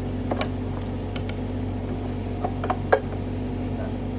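Kubota U50 mini excavator's diesel engine idling steadily, over which steel parts clink and knock sharply a few times, the loudest knock about three seconds in, as the arm and its pin are being lined up.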